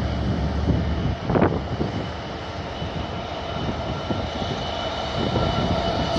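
Freightliner Class 66 diesel-electric locomotive passing close, its two-stroke V12 diesel engine running with a steady rumble, with a short louder burst of noise about a second and a half in. The hopper wagons behind it begin to rumble over the rails near the end.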